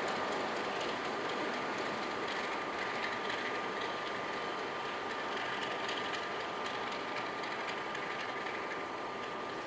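NSW 40 class diesel-electric locomotive running light engine and working uphill on the grade. Its engine note and wheel noise are steady and fade slowly as it draws away.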